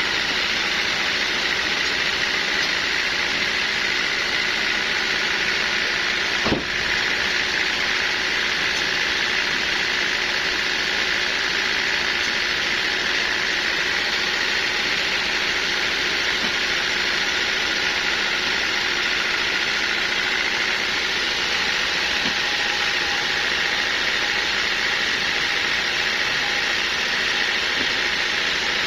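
Sawmill machinery running steadily with a constant whine, and a single knock about six and a half seconds in.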